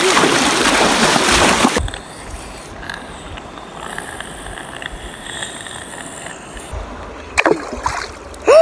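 Rushing river water over stones, loud for the first couple of seconds, then cutting suddenly to a quieter steady flow. Near the end a child's voice breaks in with a shout.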